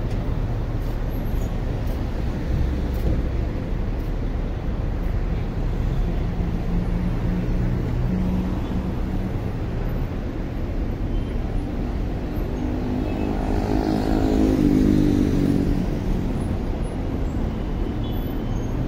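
Street traffic: a steady rumble of engines and road noise, with one vehicle's engine passing close, loudest about fourteen to fifteen seconds in, then fading.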